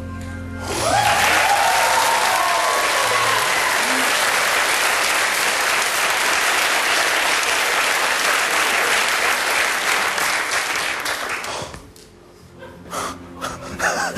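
Studio audience applauding and cheering, starting about a second in and stopping sharply about two seconds before the end.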